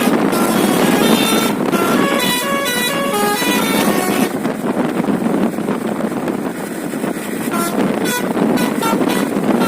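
Basuri telolet bus horn playing a quick melody of short stepped notes for the first three and a half seconds or so. Under it is a steady rushing noise that carries on after the horn stops.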